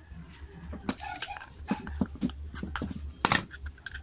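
Handling noise from the aluminium housing of an electric planer being turned over and wiped with a cloth: scattered clicks and knocks, the loudest about three seconds in.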